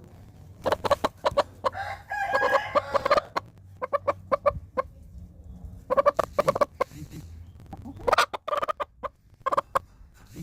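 A hen clucking in runs of short calls, in several bouts with brief pauses between them.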